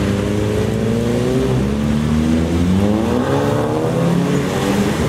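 Several car engines running at once as cars accelerate through a roundabout, their notes climbing and falling with the throttle and overlapping, one rising strongly about three seconds in.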